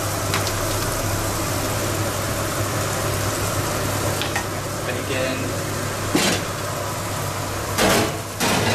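Bacon and mushrooms sizzling in hot bacon fat in frying pans: a steady frying hiss over a low hum, with a few sharp utensil knocks in the second half.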